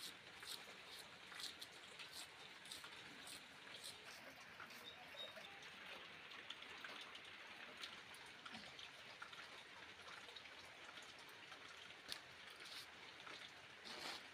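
Near silence: a faint steady hiss with scattered soft clicks.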